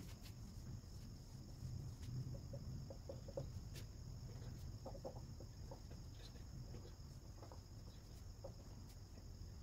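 Faint clucking of a hen, a few short clucks in small bunches, over a low steady hum, with a few faint clicks.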